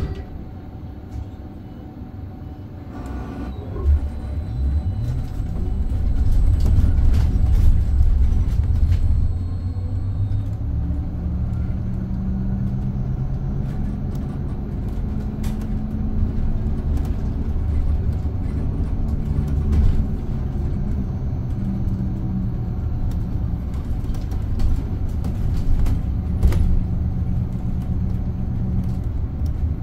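Scania Higer Fencer F1 Integral electric bus driving: a steady low rumble that builds a few seconds in, with a low steady hum over it later on.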